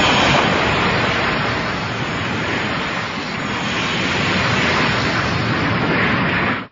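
Biollante monster sound effect: a loud, sustained rushing noise with no clear pitch, easing slightly in the middle and cutting off abruptly near the end.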